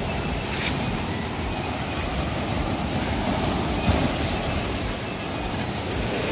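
Steady rush of sea surf on a rocky shore, with wind buffeting the microphone.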